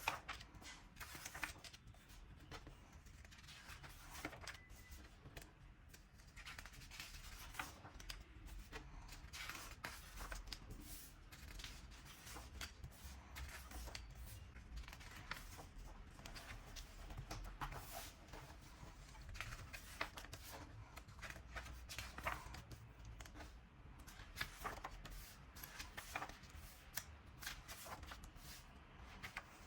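Unboxing of paper merchandise: packaging and printed paper items handled, with light rustling and many scattered soft clicks and taps.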